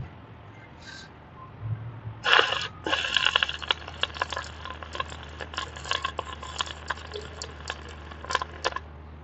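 MIG welding arc crackling. It starts with a short strike about two seconds in, then runs in a dense, irregular crackle until it stops near the end, over a low steady hum.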